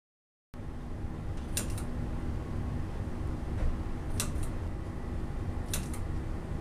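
Pull-string ceiling light switch clicking three times, a couple of seconds apart, as the bulb is switched on and off, over a steady low hum.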